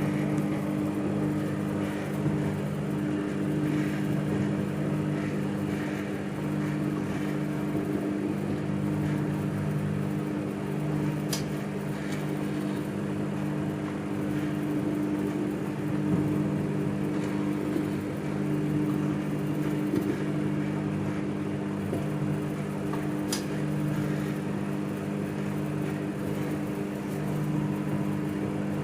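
Microwave oven running with a steady low hum, and two faint clicks about twelve seconds apart.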